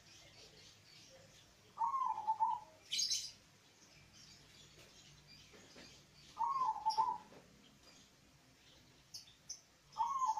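Zebra dove (perkutut) cooing: a short rippling coo phrase roughly every four and a half seconds, three in all, the last cut off at the end. A brief high chirp sounds about three seconds in.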